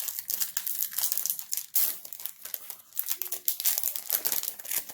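Foil Pokémon booster pack wrapper being torn open and crinkled by hand: a dense run of crackling, with louder crinkles about two seconds and about four seconds in.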